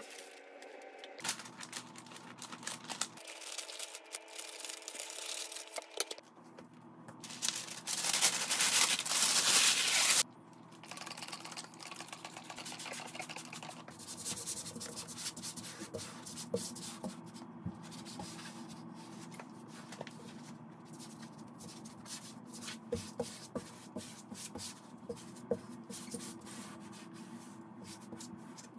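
Hands rubbing and smoothing frosted privacy film against wet window glass and peeling it back, with many short scrapes and clicks of the plastic sheet. About seven seconds in there is a loud hissing rush that lasts some three seconds.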